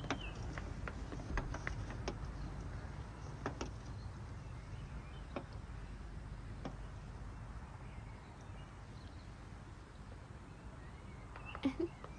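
Quiet background with a low steady hiss, broken by a few faint scattered clicks and taps and a short louder sound near the end.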